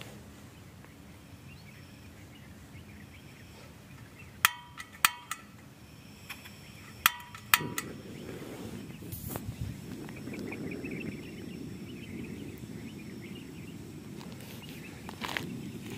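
Portable butane camping stove being lit: the piezo igniter snaps five times, each with a short metallic ring, and on the last snap the burner catches and runs with a steady low rush of burning gas.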